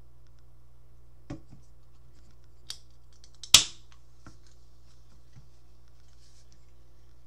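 An energy drink can being handled and opened: a light knock, a small click, then about three and a half seconds in the sharp crack of the pull-tab with a short hiss, followed by a couple of soft knocks.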